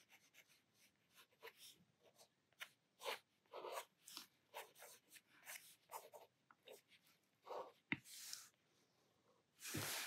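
Faint scratching of a black Pitt permanent fine-liner pen drawing on smooth sketchbook paper, in short, irregular strokes, with a small sharp tick about eight seconds in.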